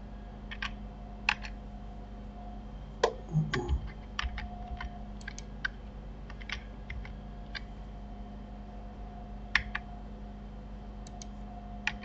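Computer keyboard keys and mouse buttons clicking in scattered, irregular presses, as shortcut keys are tapped to extrude and scale a mesh in Blender, over a low steady hum. The clicks bunch together about three seconds in and again near the end.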